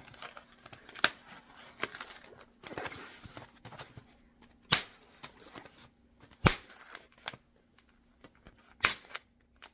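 Styrofoam box being pried and broken open by hand: five or so sharp cracks and snaps, the loudest about six and a half seconds in, with a stretch of scratchy rubbing and tearing early on.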